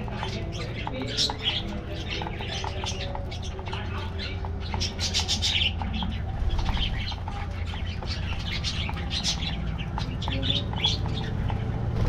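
A flock of budgerigars chattering, with many short, overlapping high chirps and squawks over a steady low hum.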